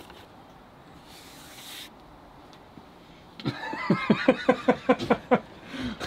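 A person laughing in a run of about eight short bursts, after a quiet stretch with a brief hiss.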